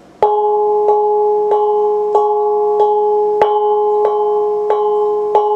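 Small hand-held bossed gong struck in the centre with the fingertips, nine even strikes about one and a half a second, each ringing on into the next with a sustained metallic hum of several pitches. It is beating out a steady tempo, as it does at the head of a Thai parade procession.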